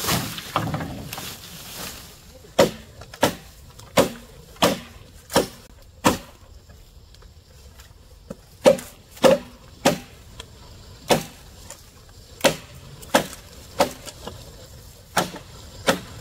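Chopping strikes on wood: about fifteen sharp blows, roughly two-thirds of a second apart, coming in runs with short pauses between.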